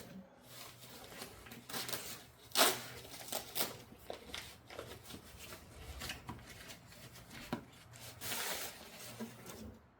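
Packaging being opened and handled by hand: irregular rustling, scraping and tearing strokes, with a sharper knock about two and a half seconds in and a longer rustle near the end.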